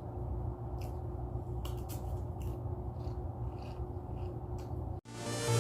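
Faint crisp chewing and mouth sounds of someone eating, over a low room hum. Near the end the sound cuts off abruptly and electronic dance music starts.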